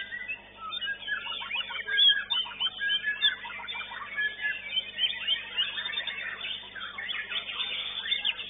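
White-rumped shamas singing together in a dense chorus of overlapping whistles, chirps and rapid trills.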